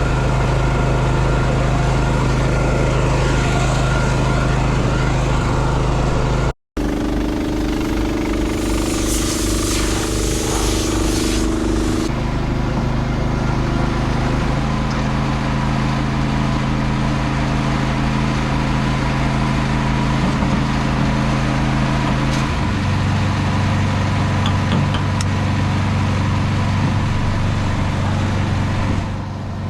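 Diesel engines of heavy harvest machinery running steadily under load, with the engine note changing at several cuts and a brief dropout about six seconds in.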